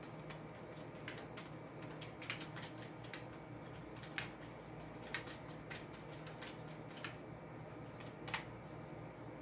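Keys of a computer keyboard being pressed: irregular clicks, a few of them louder, over a steady low hum.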